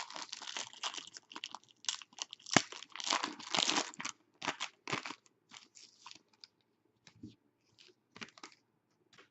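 A hockey card pack's wrapper being torn open and crinkled: dense crackling and tearing with a sharp snap about two and a half seconds in, thinning to a few scattered rustles after about six seconds.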